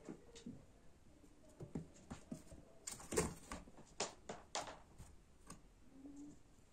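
Kittens playing with a cardboard box: irregular light scratches, taps and knocks of claws and paws on the cardboard, with the loudest cluster of knocks about three seconds in.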